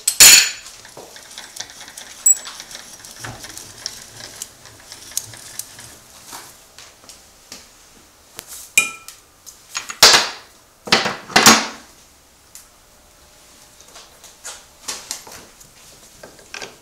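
Metal-on-metal clanks and clinks from lathe tooling being handled on the lathe. There is a sharp loud clank right at the start, scattered light clicks, then a cluster of louder clanks about ten to eleven and a half seconds in.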